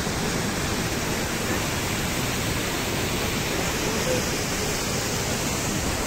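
Steady, even rush of the Kivach waterfall and the white-water rapids below it on the Suna River.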